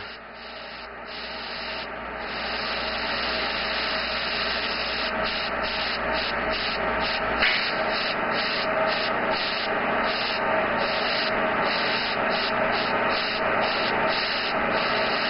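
Airbrush spraying paint: a steady hiss of air and paint that builds over the first couple of seconds and then holds, laying down a solid coat of colour. A low hum underneath stops about halfway through.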